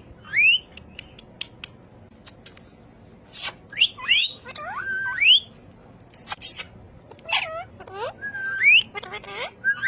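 Pet parrot whistling in short upward-sliding notes, mixed with sharp high chirps and clicks and a few louder squawky calls, in separate bursts with short pauses between.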